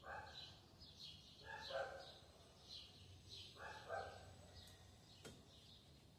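Faint bird chirps repeating about twice a second, with a dog barking faintly about every two seconds and a single click about five seconds in.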